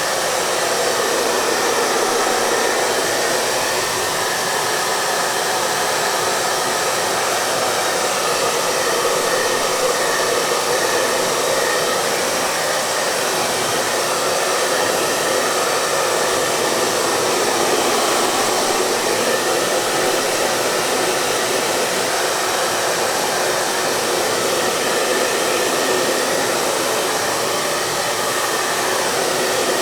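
Hair dryer running steadily: an even, unbroken rush of fan and blown air with faint steady tones from the motor in it, without any change in speed.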